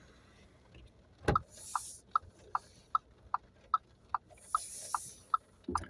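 Car turn-signal indicator ticking at an even pace of about two and a half clicks a second, starting about a second and a half in. A sharp knock comes just before the ticking starts, and two brief hissing swishes pass, one near the start of the ticking and one about three seconds later.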